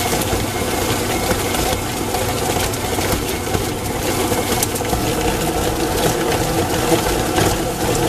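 Electric stand mixer running steadily, its motor whirring as the flat paddle beater churns and shreds hot cooked chicken breasts in a stainless steel bowl, with a few faint clicks.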